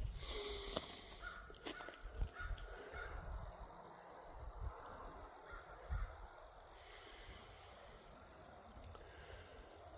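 Crows cawing faintly a few times, mostly in the first half.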